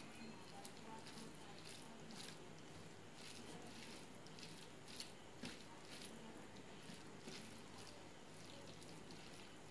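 Faint, soft, irregular squishing and clicking of fingers mixing cooked rice with food on a steel plate, with a couple of slightly louder clicks about five seconds in.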